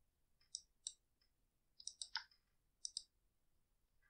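Computer mouse button clicking: several short, sharp clicks in small groups, against near silence.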